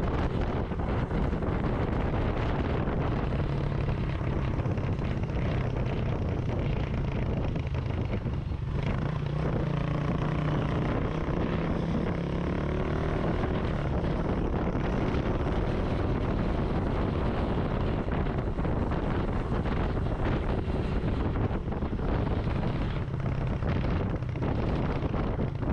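Motorcycle engine running at a steady cruising speed, with wind buffeting the microphone.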